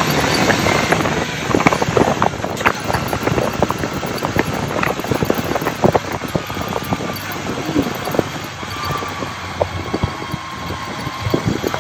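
Honda CB450T Hawk's parallel-twin engine running while the motorcycle is ridden along the road, heard from the rider's seat, with many irregular crackles over a steady noisy rush. The sound is loudest at the start and eases somewhat after the first couple of seconds.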